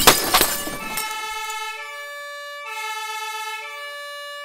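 A brief, loud noisy crash at the very start, then a two-tone siren alternating between a higher and a lower note about once a second.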